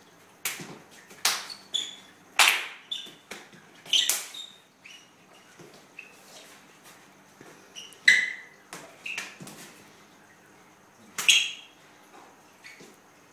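Shoes squeaking and scuffing on a wooden floor, with slaps of hands and forearms meeting during close sparring. They come in quick irregular clusters with short pauses, the sharpest squeaks about eight and eleven seconds in.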